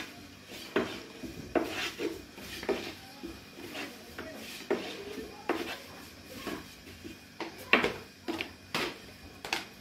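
Thin wooden rolling pin knocking and rolling on a round wooden board as flatbread dough is rolled out, with sharp irregular knocks about once or twice a second and rubbing in between.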